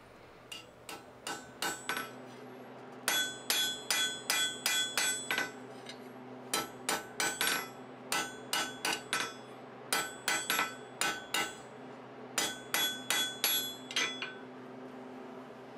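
A forging hammer made from a sledgehammer striking a red-hot steel bar on an anvil, drawing out a chisel point. A few light taps come first, then runs of heavier blows at about three or four a second with short pauses between runs, each blow with a brief metallic ring. The blows stop near the end.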